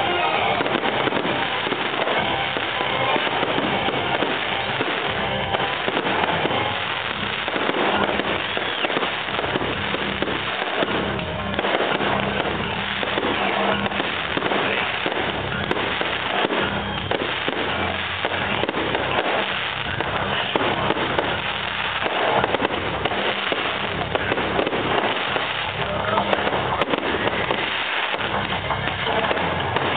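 Fireworks display: aerial shells bursting in a dense, unbroken run of bangs and pops.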